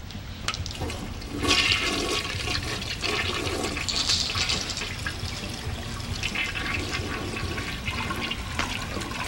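Steady rushing of water that sets in about a second and a half in.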